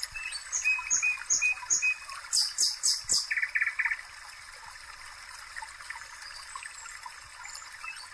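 A bird chirping in quick repeated phrases for the first few seconds, ending in a short fast trill, over a steady hiss of curd-dough pieces frying gently in oil.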